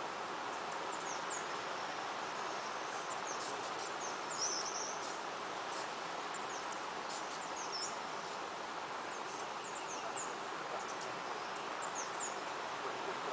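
Outdoor ambience: a steady, even hiss with many short, high bird chirps scattered through it.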